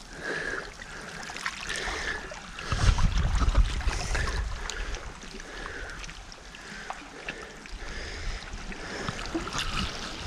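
Shallow seawater lapping and trickling around rocks at the water's edge. Wind buffets the microphone with a low rumble about three seconds in.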